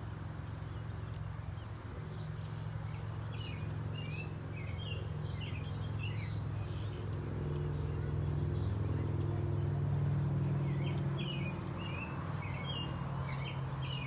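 Small birds chirping in quick, repeated short calls, in one spell from about four to seven seconds in and another near the end, over a steady low rumble.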